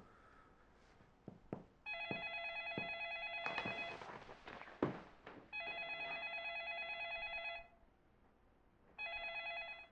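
Telephone ringing with a trilling ring: three rings about two seconds long, about a second and a half apart, the last cut short. Footsteps and a few sharp knocks sound between the rings, the loudest knock about halfway through.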